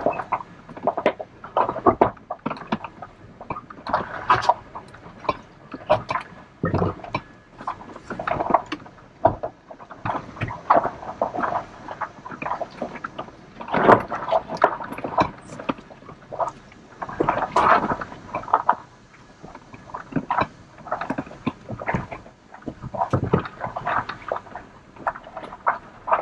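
Inside a truck cab crawling over a rough dirt trail: irregular knocks, clicks and rattles as the truck bumps along, with a few harder jolts about halfway through.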